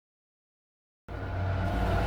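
Silence, then about a second in a loud vehicle-like noise with a low hum cuts in abruptly and keeps growing louder, a sound effect played in reverse.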